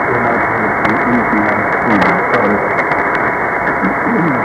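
Weak AM shortwave signal on 4755 kHz through a JRC NRD-545 receiver's narrow filter: a faint voice buried under steady hiss and scattered static crackles. The station is presumed to be PMA Cross Radio of Micronesia.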